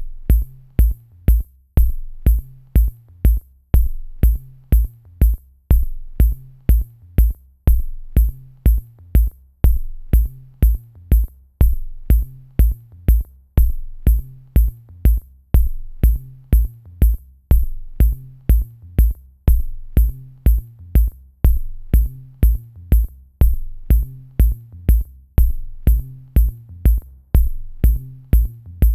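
Background electronic music with a steady drum-machine beat and a pulsing bass line.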